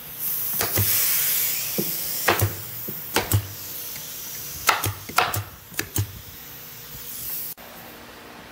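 Pneumatic staple gun firing about ten sharp shots, many in quick pairs, fixing felt damping inside a plywood speaker cabinet, with hissing air from the tool, loudest in the first two seconds. The sound cuts off suddenly near the end.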